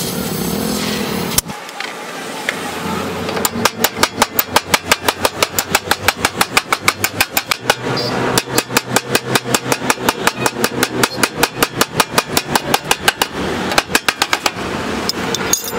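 A hammer beating the sheet steel of a car's rocker panel and floor pan in fast, even blows, about four or five a second, with a short break about eight seconds in. Before the hammering, a steady gas-torch hiss cuts off abruptly about a second and a half in.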